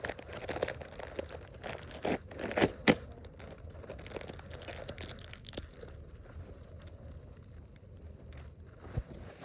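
Small plastic bag being torn open and handled, rustling, with the metal fishing spoon lures inside clinking against each other. Several sharp clicks and crackles, loudest about two to three seconds in.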